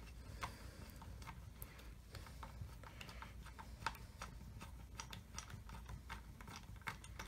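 Faint, irregular clicks of a small screwdriver turning the intonation screw on an electric guitar's bridge saddle, backing it out to loosen the saddle.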